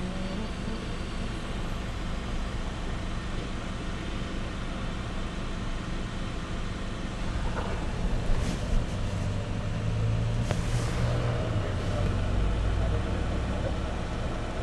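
A vehicle engine idles steadily with a low hum, which grows somewhat louder about nine seconds in. A few faint clicks sound near the middle.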